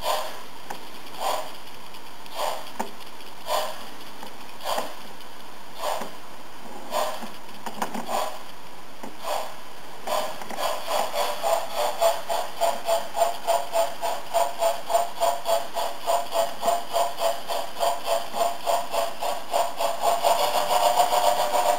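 Märklin model BR 10 steam locomotive's digital sound decoder playing steam chuffs: slow single chuffs about once a second, then from about halfway the chuffs quicken to three or four a second as the locomotive gathers speed.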